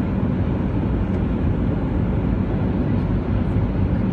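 Steady, deep engine and airflow noise inside an airliner's cabin on its landing approach.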